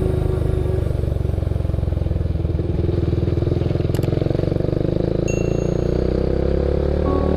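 Yamaha MX King motorcycle's single-cylinder engine running under way, its pitch rising in the second half as the bike speeds up.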